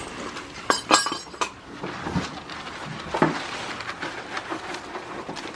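Several sharp metallic clinks and knocks in quick succession about a second in, the rattle of the shed door's hanging chain and padlock as the door is handled. Softer scattered knocks and rustling in straw follow.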